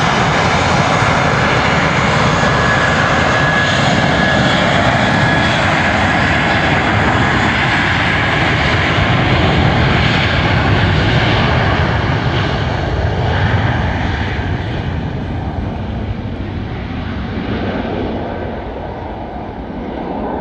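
Airbus A320-232 jet airliner taking off, its two IAE V2500 turbofans at take-off thrust: loud, steady jet noise with a high fan whine. The noise fades and grows duller over the last several seconds as the aircraft climbs away.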